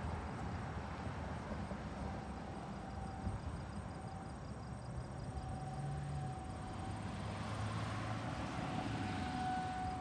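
Distant outdoor tornado warning siren sounding a faint, steady tone that fades and swells, growing stronger near the end, over a low rumble of outdoor background noise.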